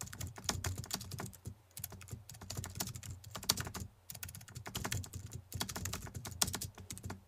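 Rapid, irregular computer keyboard typing clicks, with a couple of short pauses, used as the sound of on-screen text being typed out.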